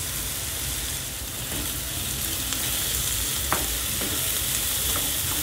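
Chopped onion, garlic and ginger sizzling in hot oil in a non-stick frying pan, stirred with a wooden spatula, with one sharp tap about three and a half seconds in.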